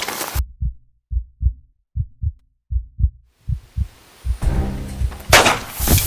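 Heartbeat sound effect: deep paired thumps, lub-dub, heard alone for about three seconds. A rising swell and a music score then come in under the beats, with a loud hit about five seconds in.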